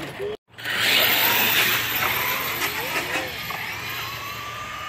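1/10-scale RC short-course trucks racing down an asphalt strip: a loud hiss of motor whine and tyre noise. It starts after a brief cut-out about half a second in and fades gradually as the trucks pull away.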